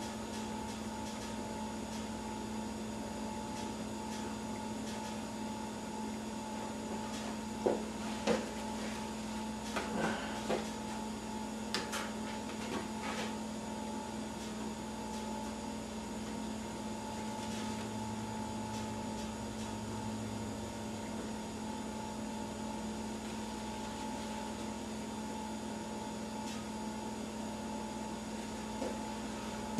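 Steady electrical hum, with a few small clicks and taps between about eight and thirteen seconds in.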